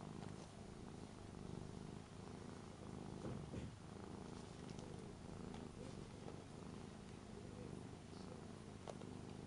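Ragdoll cat purring steadily while being stroked, a low continuous purr of a relaxed, contented cat.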